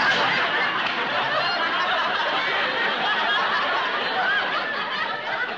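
Studio audience laughing, one long sustained laugh of many voices that holds steady.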